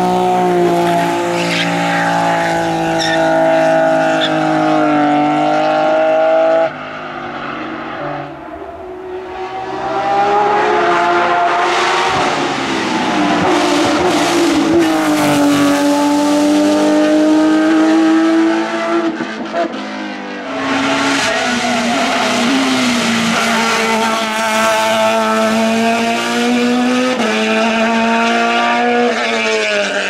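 Race cars at full throttle on a hillclimb, engines revving hard and shifting up and down through the gears. There are three passes, with abrupt cuts about 7 and 20 seconds in. In the first, a BMW E30 slides through a hairpin with tyre squeal. In the middle, a Porsche 911 race car climbs away.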